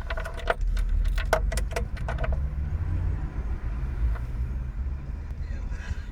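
Rover K16 1.4 sixteen-valve four-cylinder engine in a Polonez Caro idling cold at around freezing, with the knock of piston slap. For about the first two and a half seconds a quick series of sharp metallic clicks, about four a second, sits over the engine.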